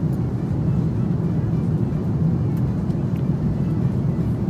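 Steady low rumble of an Airbus airliner's cabin in flight: engine and airflow noise heard from a passenger seat.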